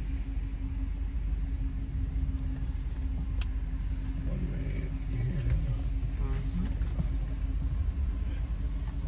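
Steady low rumble of a car driving slowly, heard inside the cabin, with a constant hum running under it.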